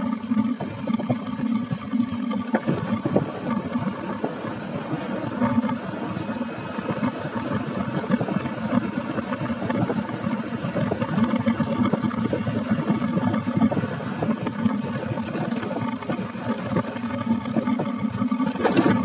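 Motorbike engine running steadily while riding, mixed with wind rushing over the microphone, with a brief louder rush near the end.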